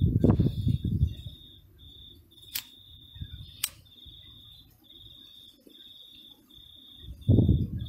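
A cricket chirping in a steady, regular run of high trills. Wind buffets the microphone with low rumbling gusts in the first second and again near the end, and there are two sharp clicks in the middle.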